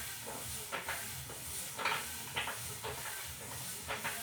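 Homemade exercise bike being pedalled, with a short scraping click about every half second to a second over a steady low hum and hiss.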